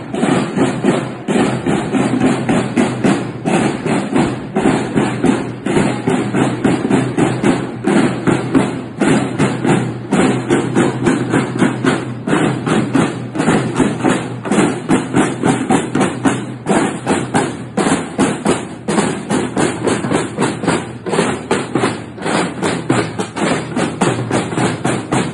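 A group of marching snare drums played with sticks, beating a steady, even rhythm without a break.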